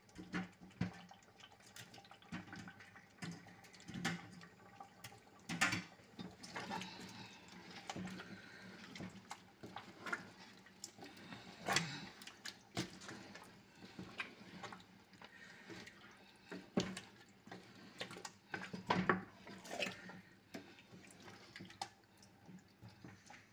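Wooden spoon stirring thick tomato stew with chicken in a pot: irregular wet squelching and slopping, with louder sharp knocks of the spoon now and then.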